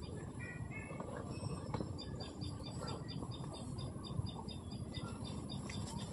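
Outdoor ambience: a high, short chirp repeats evenly about three times a second over a steady low rumble, with a few quick lower chirps near the start.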